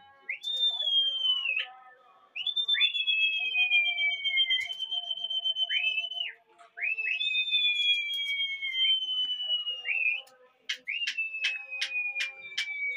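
Pigeon fanciers whistling to their flock in the air: long high whistles, each rising sharply, holding a slowly falling note for one to three seconds, then breaking off, often two at once at different pitches. Near the end, a quick run of about six sharp clicks.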